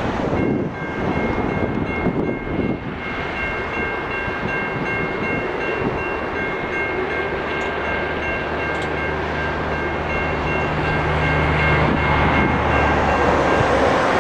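Railroad grade-crossing bell ringing in a fast, steady ding as the crossing activates and the gate arms lower. It stops shortly before the end. From about seven seconds in, the low drone of the approaching GE C40-9W diesel locomotives joins, with wind buffeting the microphone at the start.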